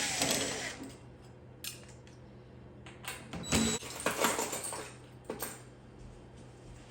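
Metallic clinks and rattles of a screwdriver and screws being worked loose from the side of a built-in microwave, in a few short bursts. The loudest comes about three and a half seconds in.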